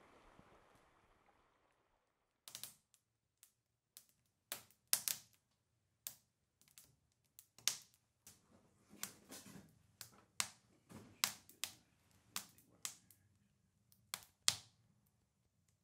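Wood fire crackling in a wood stove: irregular sharp pops and snaps, starting about two and a half seconds in after a faint hiss fades away.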